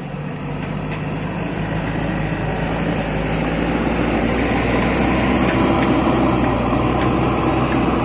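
JCB backhoe loader's diesel engine running steadily, getting gradually louder over the first several seconds as it works.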